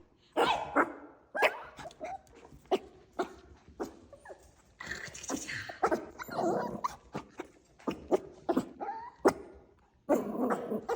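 Maltipoo puppies yapping in short, high-pitched yips at an irregular pace, with some whimpering mixed in.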